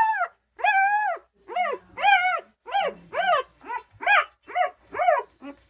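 Newborn Bernese Mountain Dog puppy crying: a run of high-pitched, arched cries, the first two drawn out, then shorter ones coming about two a second.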